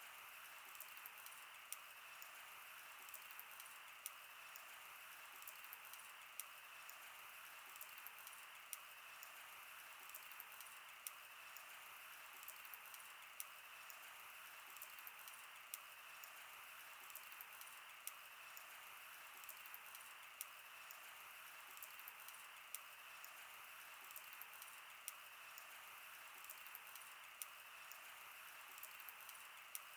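Wood fire burning: a faint steady hiss with irregular small crackles and pops.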